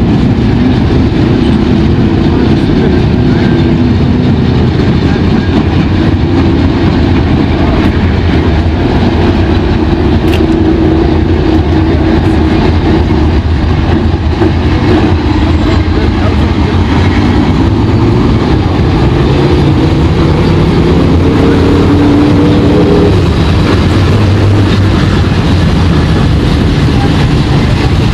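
A field of limited late model dirt-track race cars circling together, their V8 engines running in a loud, steady drone of several overlapping engine notes that drift slightly in pitch.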